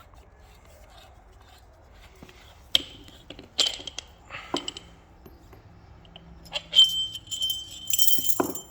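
Steel tensioner parts clinking against each other as they are handled: sharp metallic clinks with a short ring from about three seconds in, the loudest near seven seconds, and a jangling rattle near the end.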